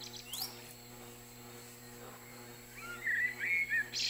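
Birds chirping: a single short rising chirp, then a warbling run of high chirps near the end, over a faint steady hum.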